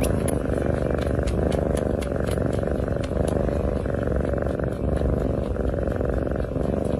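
Domestic cat purring steadily, with a fast, even pulse throughout.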